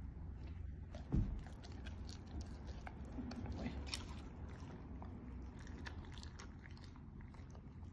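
A German Shepherd chewing chicken schnitzel, with many quick, irregular clicks of the jaws and teeth; a single dull thump about a second in.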